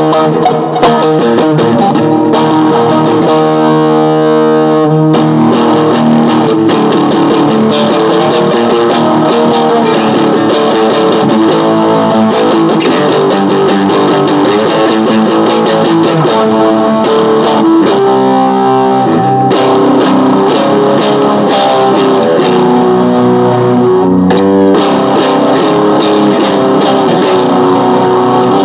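Guitar being played in an informal jam, a continuous run of plucked notes and chords, with a stretch of fast repeated notes a few seconds in.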